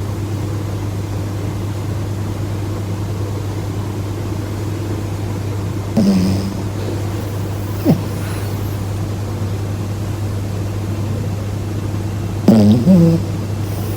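A dog snoring loudly: three separate snores, one about six seconds in, a short falling one near eight seconds, and the loudest near the end, over a steady low hum.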